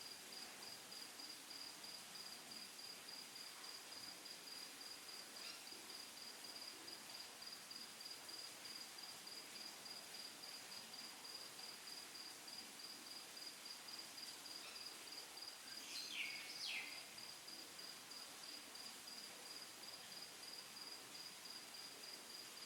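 Faint, steady cricket chirping: an evenly pulsed high trill that keeps on without a break. About 16 seconds in, two quick chirps falling in pitch stand out as the loudest sounds.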